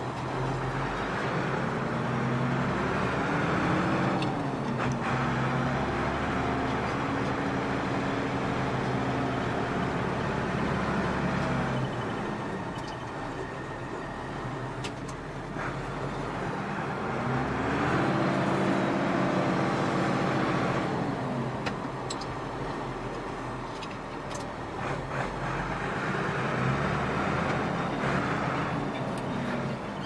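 Ford 7810 tractor's diesel engine running, revving up to a higher pitch, holding there for several seconds, then dropping back toward idle; this happens three times.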